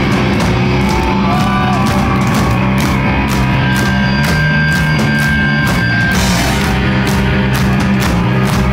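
Live punk rock band playing loud, with distorted electric guitars, bass and drums pounding a steady beat. A high guitar note is held for a couple of seconds midway through.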